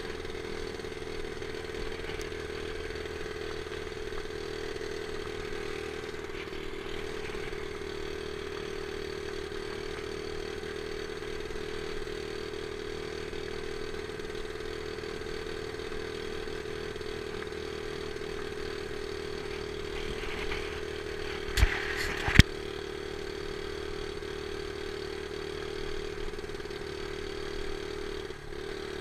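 Small Honda four-stroke single-cylinder dirt bike engine running flat out at a steady pitch while riding, the bike at its top speed. Two sharp knocks come about three-quarters of the way through.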